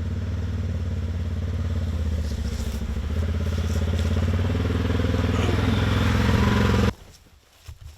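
A vehicle engine running steadily, which cuts off abruptly about seven seconds in, as it is switched off.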